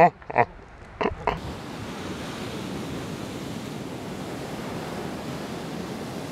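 Ocean surf breaking on a sandy beach: a steady rushing, with wind on the microphone. In the first second or so, a few short bursts of a person's voice, which end abruptly.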